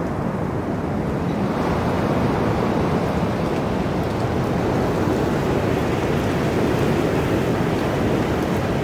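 Strong storm wind blowing steadily against a tent, heard from inside it: a constant rushing noise that swells a little about a second and a half in.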